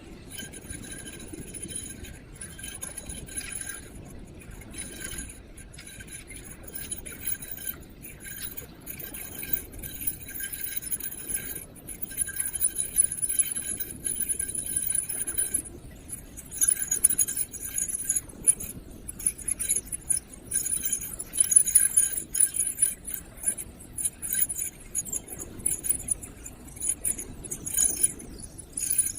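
Riding an electric kick scooter: a metallic jingling rattle comes and goes in irregular bursts over a steady low rumble of rolling. The rattle grows louder and busier about halfway through.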